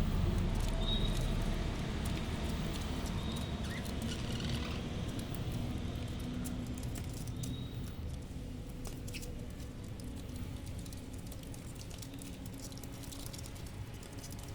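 Budgerigars pecking and rustling: a steady patter of small light clicks, with a few short faint high chirps in the first half.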